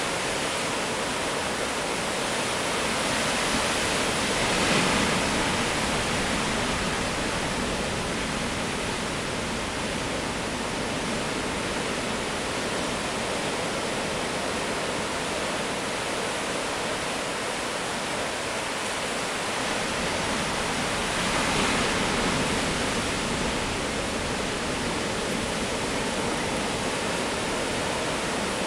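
Ocean surf breaking on a rocky shore: a steady wash of white water that swells louder twice, about five seconds in and again about twenty-two seconds in.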